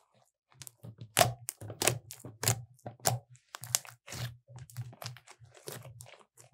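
Glossy glitter slime being stretched, poked and squeezed by hand, giving an irregular run of sharp pops and crackles, about two a second.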